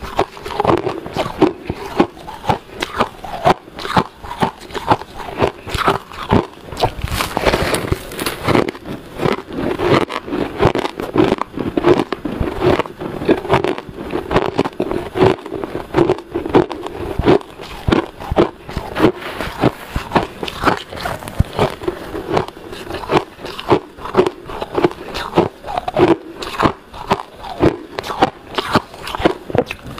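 Close-miked chewing of powdery shaved ice: many quick, irregular crunches, several a second, as mouthfuls are bitten and ground.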